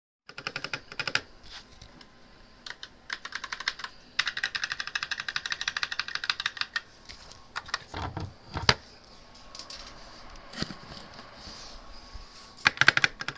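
HK Gaming GK61 60% mechanical keyboard with red linear switches and HyperX keycaps being typed on in quick bursts of keystrokes, with a dense run of rapid keypresses in the middle. A couple of heavier thumps come about eight seconds in.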